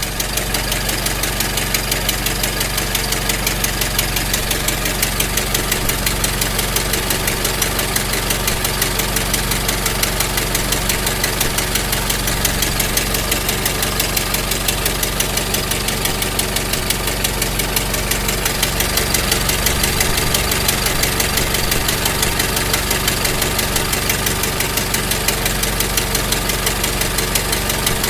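Old car engine idling steadily, with a fast, even chugging beat that does not change.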